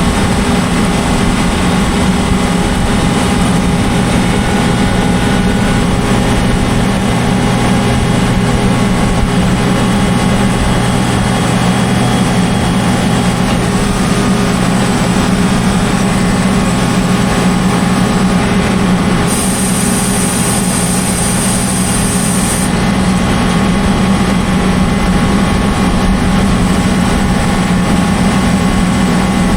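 Cotton stripper running steadily, a low engine hum throughout. About two-thirds of the way in, a high hiss joins for roughly three seconds and then stops.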